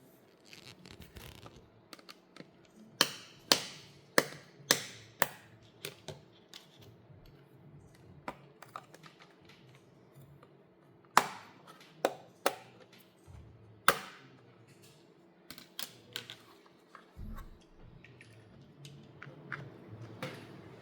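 Irregular sharp clicks and taps, several loud ones with a brief ring, from hands handling a Lenovo ThinkPad P16 Gen 2 laptop and its case.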